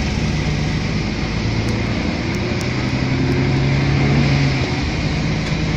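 City bus heard from inside the cabin while driving: steady engine hum and road noise, the engine's pitch shifting a little a few seconds in.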